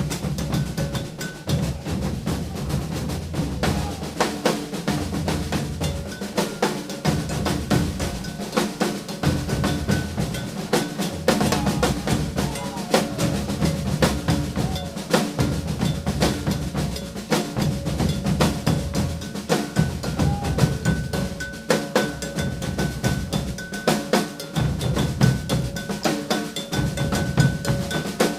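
Maracatu percussion ensemble playing a toque together: deep alfaia bass drums, snare drums and a gonguê bell beating out a repeating rhythm.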